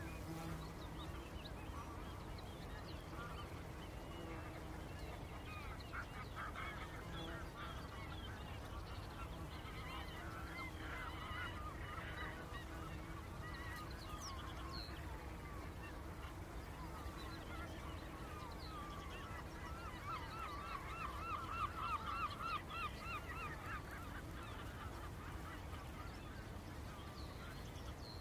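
A flock of geese honking and calling, with a dense run of rapid calls about three quarters of the way through, over a steady low background noise.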